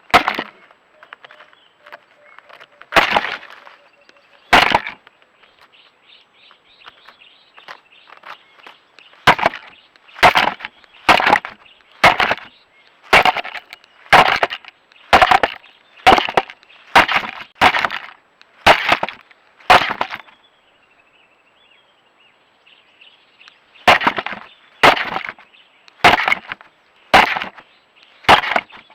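Southern ground hornbill striking a camera with its bill: hard knocks about once a second in long runs, with softer tapping and scraping between them.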